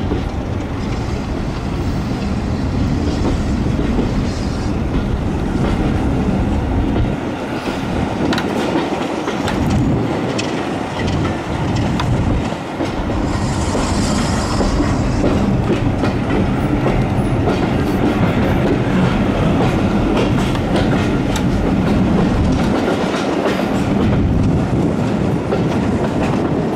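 Heritage railway passenger train running as it pulls away from the station, heard from an open carriage window: a steady rumble of the coaches with the wheels clicking over rail joints and points. A brief high hiss about halfway through.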